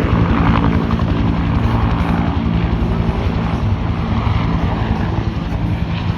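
Aircraft engine and propeller drone, a steady pitched hum with a fast pulsing beat.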